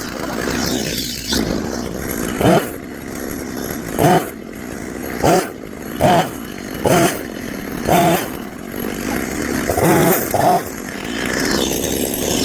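Chainsaw running, revved up in short rising surges about every second or so between steadier running, as it cuts limbs of a broken elm tree.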